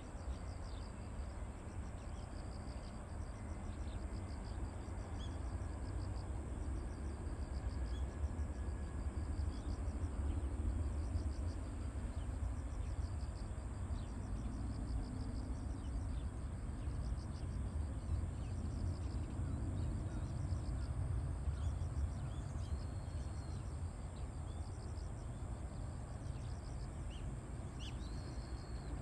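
Distant low rumble of an Embraer E170's twin GE CF34 turbofan engines as the jet climbs out after takeoff, swelling a little mid-way and easing off toward the end. Insects chirp in a steady pulsing rhythm throughout, and a bird gives a few short chirps near the end.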